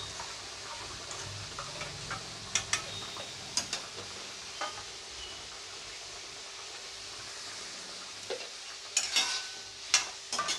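Fish curry simmering in a kadai with a steady low sizzle. Steel utensils clink against the pan a few times about three seconds in, and a ladle stirs and clinks repeatedly near the end as poppy seed paste is mixed into the gravy.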